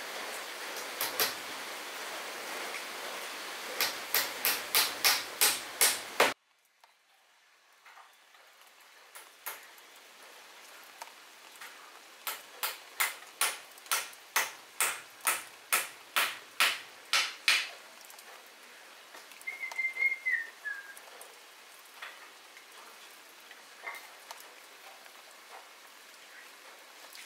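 Runs of quick, evenly spaced sharp taps, about two to three a second, from a hand tool striking. The first run plays over a steady rushing noise that cuts off suddenly about six seconds in; a second, quieter run follows, and a brief high falling whistle-like note sounds later.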